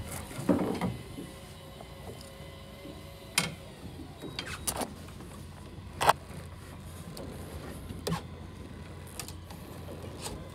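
Electric fishing reel motor winding in a hooked fish with a steady whine, over a low steady hum. Several short sharp clicks come through it, the loudest about six seconds in.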